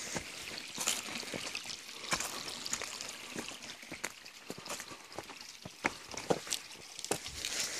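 A small woodland stream trickling and splashing over rocks, with irregular footsteps on stones and leaf litter.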